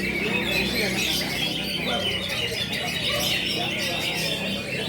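Many caged cucak ijo (greater green leafbirds) singing at once in contest, a dense unbroken chorus of overlapping chirps, trills and squawks.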